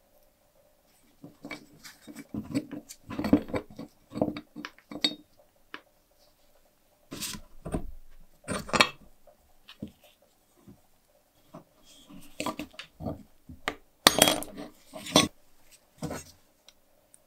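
Metal parts of a Boston hand-crank pencil sharpener clinking and knocking irregularly as they are handled during disassembly, in three bursts of clatter with short pauses between.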